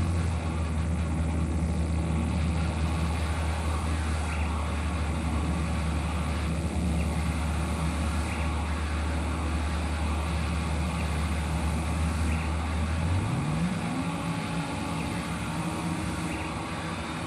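Experimental noise music from a live improvisation: a heavy, steady low drone under a dense wash of noise. About two-thirds of the way through, the drone breaks off into a tone that sweeps upward and holds at a higher pitch.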